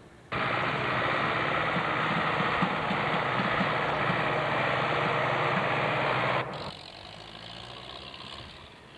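Tractor diesel engine running steadily. It starts abruptly about a third of a second in and cuts off suddenly after about six seconds.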